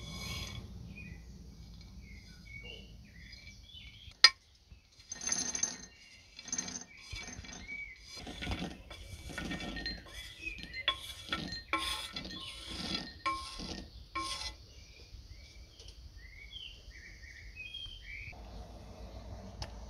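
Toasted pine nuts scraped from a pan and clattering into a glass bowl in a run of short rattling pours lasting about ten seconds, preceded by a single sharp click about four seconds in.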